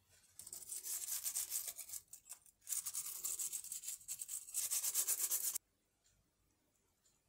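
A small brush scrubbing back and forth over an answering machine's button circuit board with its tactile microswitches. The scrubbing comes in two spells with a short break and stops abruptly near the end.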